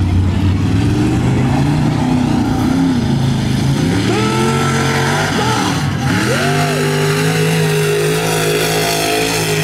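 A high-horsepower mud bog truck's engine running hard under throttle, its pitch dropping sharply about five and a half seconds in, then climbing back and holding steady at high revs.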